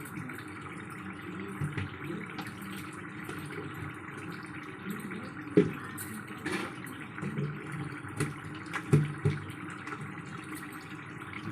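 Chicken frying in a kadai with its released juices: a steady sizzle and bubble, broken by a few sharp knocks about five and a half and nine seconds in.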